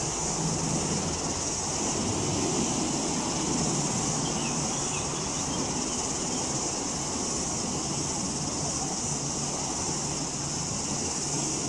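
Steady waterfront ambience: wind on the microphone and a low engine hum, under a constant high hiss.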